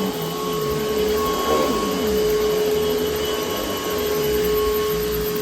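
2004 Panasonic upright vacuum cleaner running steadily with a constant motor whine, and a lower tone sweeping up and down rhythmically beneath it. Its drive belt is one the owner says still needs replacing.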